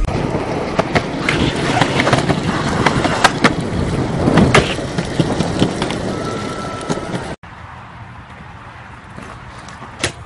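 BMX bike riding on concrete: tyres rolling, with a run of sharp clacks and knocks from the bike hitting the ground. About seven seconds in the sound cuts off abruptly and gives way to quieter rolling with a few clicks near the end.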